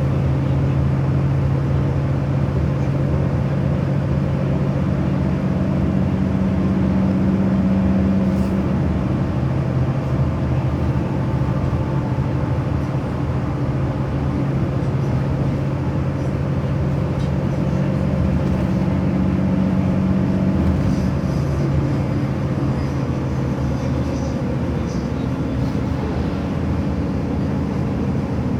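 A vehicle running steadily: a constant low engine hum over road or running noise.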